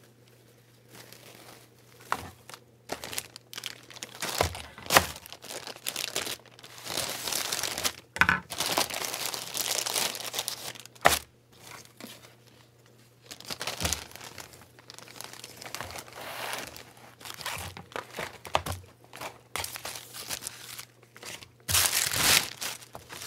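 Plastic mailer bags being crinkled and torn open by hand: irregular rustling and crinkling with a few sharp knocks, loudest about halfway through and again near the end.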